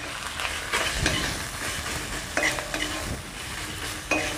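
A flat metal spatula stirring and scraping spice paste that sizzles in hot mustard oil in an aluminium wok, the masala being fried down. Irregular scrapes of the spatula against the pan over a steady sizzle.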